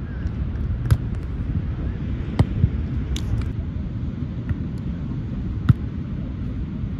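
Several sharp slaps of hands and forearms striking a volleyball, passed back and forth over steady wind noise on the microphone. Two come close together in the middle, and the loudest is near the end.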